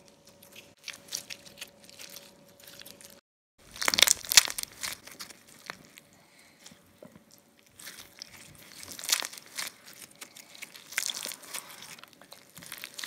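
Clear slime being squeezed and stretched by hand, giving irregular crackling, crunching clicks. There is a brief break about three seconds in, and the crackles are loudest just after it.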